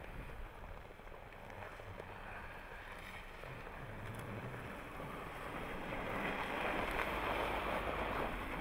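Jeep Renegade driving on packed snow, its engine and tyres low under wind noise on the microphone. The sound grows louder in the second half as a Renegade passes close by.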